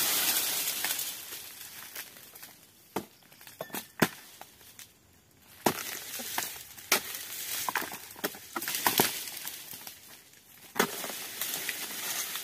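Oil palm fronds being cut with a sickle on a long pole: scattered sharp cracks and crunching with rustling of the fronds, strokes coming a second or more apart and several in quick succession near the middle.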